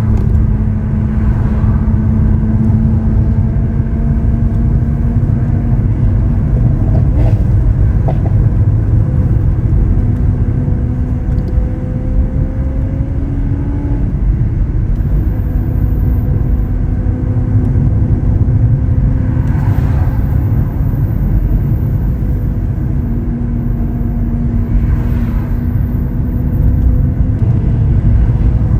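Lamborghini Aventador SV Roadster's 6.5-litre V12 running at steady, moderate cruising revs, its note easing slowly up and down, under heavy low road and wind rumble. There are a few brief breaks in the note and a handful of short sharp noises.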